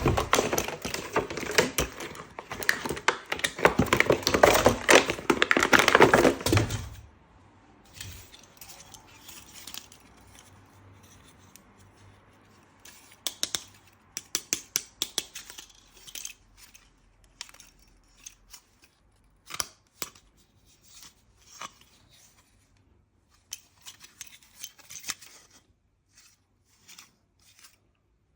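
Packaging being torn and crinkled for about seven seconds, then scattered clicks and light rattles of small hard parts being handled.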